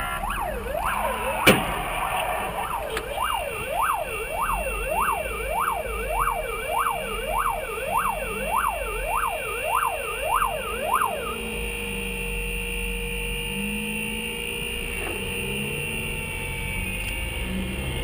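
Emergency-vehicle siren in a fast yelp, rising and falling about twice a second, heard from inside a moving car over steady road noise. It stops about eleven seconds in. A sharp click about a second and a half in.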